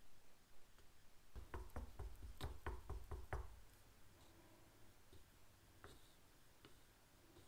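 Wooden stirring stick knocking against the sides of a small metal paint tin while stirring paint, a quick run of about eight knocks in the first half, followed by faint stirring.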